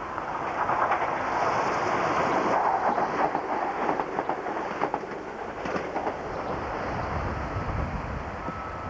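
Class 165 Turbo diesel multiple unit passing close at speed: a loud rushing noise with quick clicks of the wheels over rail joints, easing off after about five seconds. A lower engine rumble grows near the end.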